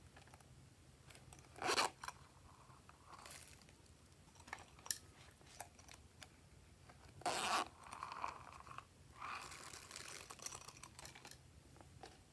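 Hands handling plastic containers and tipping small decorations into a glass dish: scattered clicks and taps, two short loud rasps, one about two seconds in and one about seven seconds in, and a stretch of crinkly rustling near the end.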